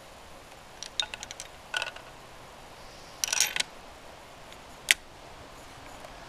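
Metallic clicks and rattles of a Savage Model 10 bolt-action rifle being worked between shots: a few quick clicks about a second in, a short rattle around three seconds in, and a single sharp click near five seconds.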